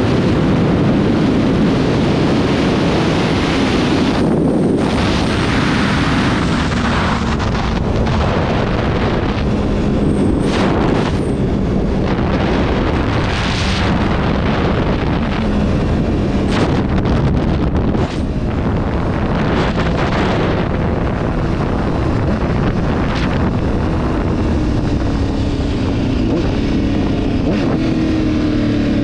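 Honda CBR1000RR's inline-four engine cruising at highway speed, heard from the rider's seat under steady wind rush on the microphone. Its pitch rises over the last few seconds as the bike accelerates.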